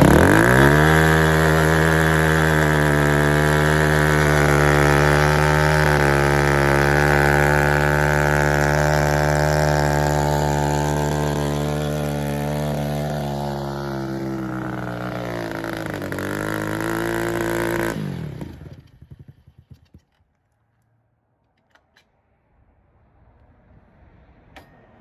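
125cc dirt bike engine running at a steady pitch, running on a newly installed carburetor, and slowly getting quieter. Near the end its pitch dips briefly, then the sound cuts off suddenly and gives way to near silence with a few faint clicks.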